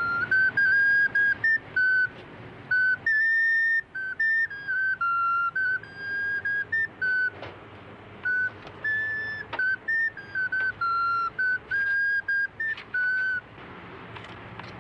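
A small hand-held whistle-like wind instrument playing a wandering tune of clear, high single notes. The tune stops about a second before the end.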